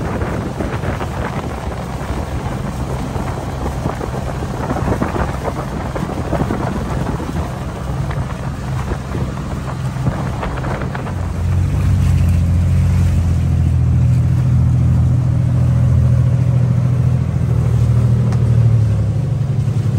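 Motorized outrigger boat's engine running with a steady low drone, under wind and rushing water. The engine grows noticeably louder a little past halfway.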